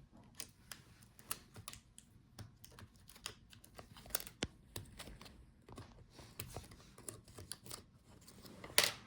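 Irregular light clicks and taps as cables and connectors inside an opened laptop are handled and unplugged from the motherboard, with one sharper click near the end.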